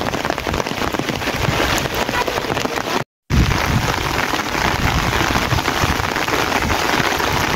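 Steady heavy rain falling, a dense even hiss of drops. It cuts out for a moment about three seconds in, then resumes with more low rumble beneath it.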